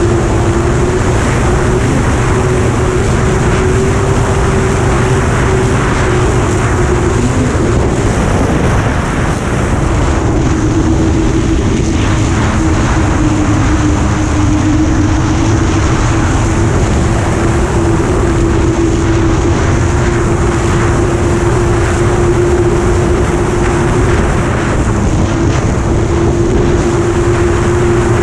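Engine of a vehicle travelling over snow, running steadily at speed with one droning note that wavers and drops out briefly around eight to ten seconds in, then holds steady again, over a rush of noise from the ride.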